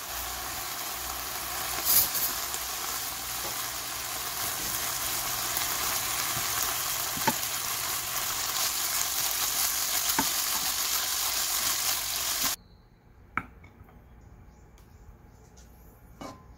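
Shredded pork sizzling as it is stir-fried with black bean paste in a pan, with a wooden spatula knocking and scraping against the pan a few times. The sizzling cuts off suddenly near the end, leaving a quiet room with a couple of faint clicks.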